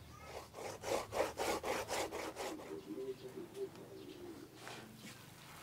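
Raw cassava being grated by hand: rhythmic scraping strokes, about five a second, for about two seconds, then fainter and more scattered.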